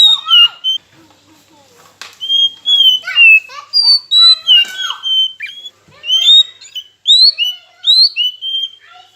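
Oriental magpie-robin (kacer) singing: a fast, varied run of clear whistled notes, many sliding up or down, in short phrases with a brief pause about a second in.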